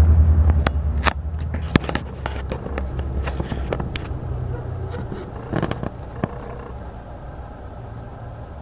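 Scattered knocks and clicks of someone moving about and climbing into a pickup truck's cab, over a low steady rumble that grows quieter in two steps, about a second in and again about six seconds in.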